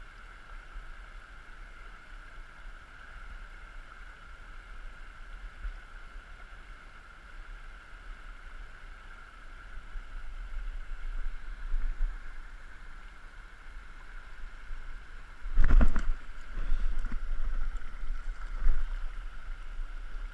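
Small stream flowing steadily over a shallow bed, with a low rumble. About three-quarters of the way through there is a loud knock, followed by a few smaller bumps.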